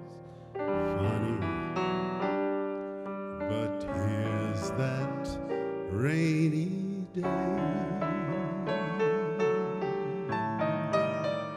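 Digital stage piano playing a slow jazz ballad, with a man's voice singing over it with vibrato.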